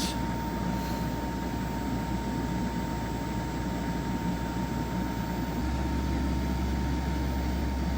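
EcoFlow Wave portable air conditioner running in cooling mode with its fan on high and compressor working hard, a steady whoosh of air over a low hum with a thin steady tone above it. The low hum steps up slightly about five and a half seconds in as the power draw climbs past 400 watts.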